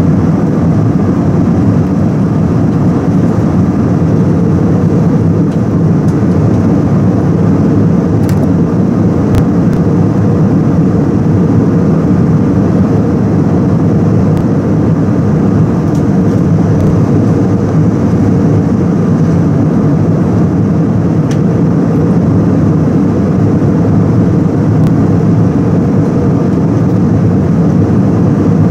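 Steady cabin drone of an Airbus A319-111 in flight, heard from a window seat over the wing: the low, even rumble of its CFM56-5B engines and airflow over the fuselage.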